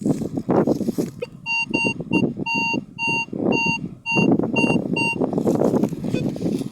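Metal detector sounding a target signal: about ten short, evenly pitched beeps in a row, starting about a second and a half in and stopping a little after five seconds. Loud rustling and scraping runs throughout.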